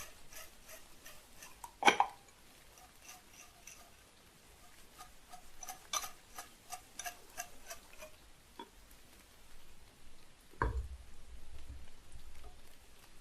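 Dry, tightly rolled Tieguanyin oolong leaves rattling and ticking against the walls of a porcelain gaiwan as it is shaken, a quick string of light clicks for about eight seconds, with a sharper porcelain clink about two seconds in and a duller knock near the end, as of the lid or cup being set down.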